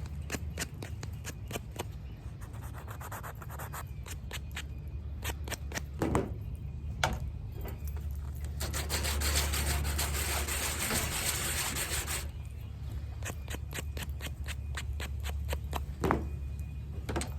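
Small cast pieces being sanded on their backs: repeated rubbing strokes of sandpaper, a stretch of steadier continuous scrubbing a little past the middle, and a few sharper knocks as pieces are handled.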